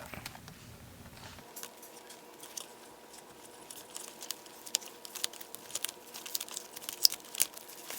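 Electrical tape being peeled and unwound from a car headlight wiring harness: faint, irregular crinkling and small ticks.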